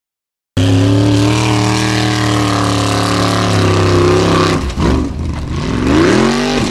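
Formula offroad car's engine at high revs, pulling under load up a steep loose-sand climb. It starts suddenly about half a second in and holds a steady pitch for about four seconds. After that its pitch rises and falls repeatedly as the throttle is worked.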